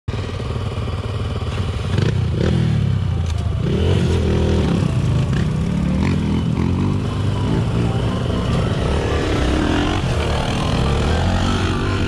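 Enduro motorcycle engine running while being ridden, its revs rising and falling, with a few short knocks over the top.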